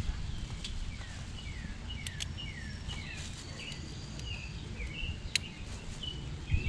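Small birds chirping, a steady run of short downward-sliding chirps, over a low rumbling background with a few sharp clicks.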